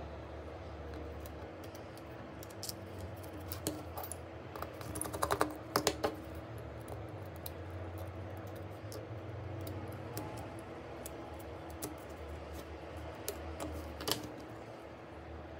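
Light clicks and taps of small tools and parts being handled on a OnePlus 8 smartphone under repair, with a quick run of sharper clicks around the middle and a single one near the end, over a steady low hum.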